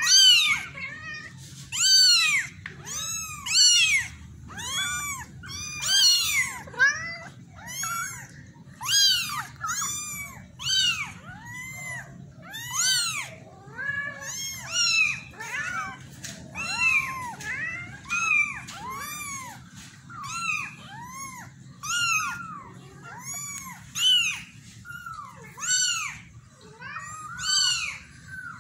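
Very young tabby kitten meowing over and over, high-pitched cries that each rise and fall in pitch, about one a second.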